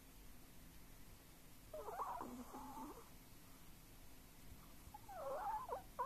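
A sleeping, dreaming Chihuahua making faint, high, wavering whistling whimpers through its nose, in two short bouts about two seconds in and about five seconds in.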